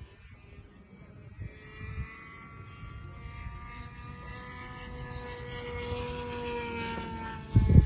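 Align T-Rex 600 RC helicopter spooling up: a whine of the motor and rotor that rises in pitch, then holds while getting steadily louder. A loud, low, gusty rumble breaks in near the end.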